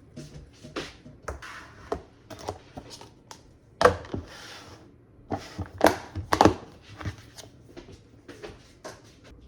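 A string of irregular clicks, taps and knocks from things being handled, with louder thunks about four seconds in and twice around six seconds in.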